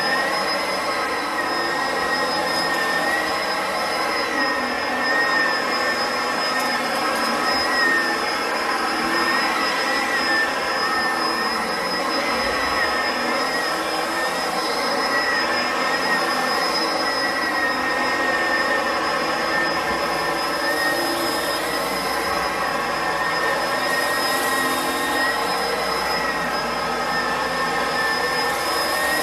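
Bissell upright vacuum cleaner running steadily as it picks up pet hair and debris from the floor, its motor giving a steady high whine that wavers slightly in pitch.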